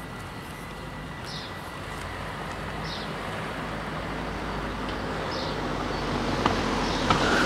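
A car drives over the level crossing toward the microphone, its tyre and engine noise growing louder toward the end, with two sharp clicks near the end. A bird chirps a few times in the background.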